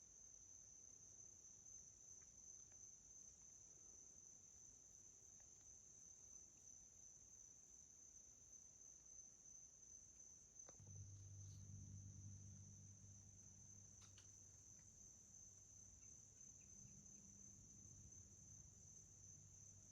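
Faint, steady high-pitched chirring of insects. A low hum joins about halfway through.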